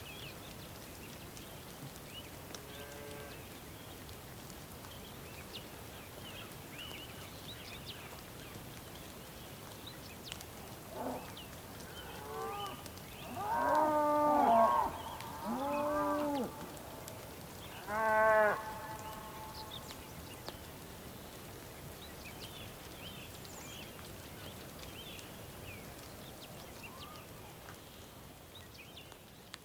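Bulls mooing: a faint call about three seconds in, then a run of loud calls from about eleven to nineteen seconds in, the last two the loudest. Behind them a steady hiss of rain and scattered bird chirps.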